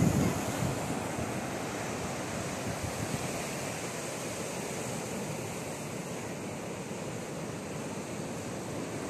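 Steady rush of sea surf breaking on the beach.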